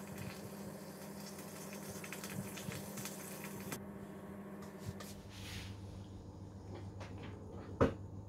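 Cream simmering in a stainless saucepan, a fine crackling fizz of small bubbles that drops away about four seconds in. Near the end comes one sharp clink as a metal spoon touches the saucepan.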